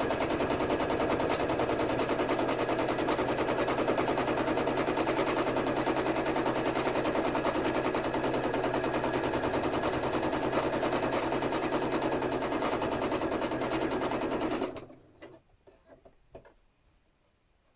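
Sewing machine stitching at a steady fast speed, the needle clattering rapidly, then stopping abruptly about fifteen seconds in. A few faint clicks of handling follow.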